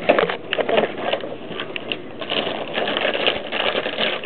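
Cardboard gift box and wrapping rustling and crinkling with many quick, irregular clicks and crackles as a dog noses into it, busiest in the second half.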